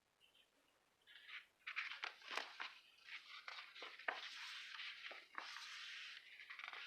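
Stickers and paper being handled: a faint, irregular hiss and scrape with several sharp ticks, starting about a second in.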